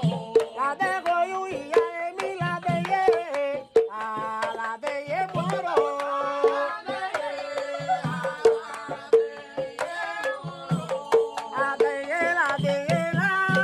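Music: regular hand-drum strokes under an ornamented melody line that slides and bends in pitch.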